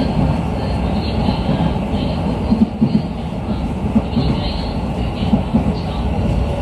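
Running noise inside a moving Hokuso Railway 7500 series electric commuter car: a steady rumble of wheels on rail and undercarriage, with a few brief sharper knocks.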